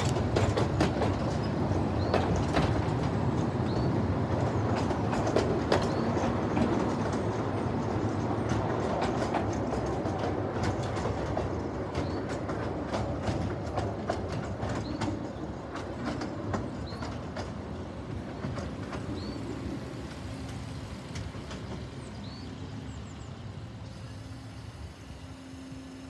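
A 10¼-inch gauge miniature railway train's coaches rolling away along the track, the wheels clicking over rail joints above a rumble that fades steadily as the train draws off.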